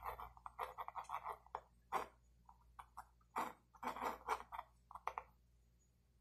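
Pencil scratching on drawing paper: a quick, irregular run of short sketching strokes, with brief pauses and a quieter stretch near the end.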